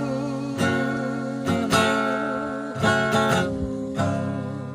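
Steel-string acoustic guitar playing the closing chords of a hymn accompaniment, restruck about half a dozen times and left to ring, getting quieter toward the end.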